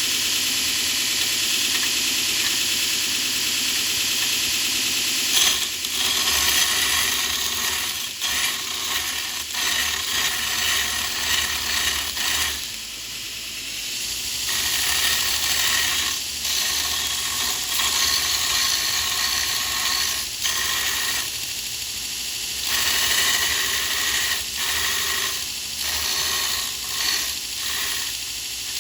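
Power grinder grinding steel: a steady, loud hiss for about five seconds, then uneven as the tool is pressed onto and eased off the metal, with short lulls around halfway and about two-thirds through.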